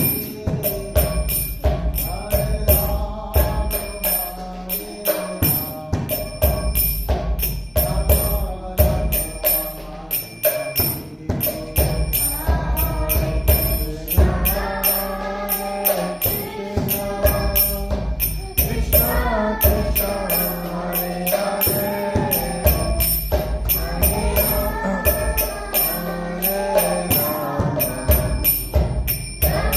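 Devotional chant-style music: voices singing a melody over a steady beat of jingling percussion and a low drum. The singing comes to the fore about twelve seconds in.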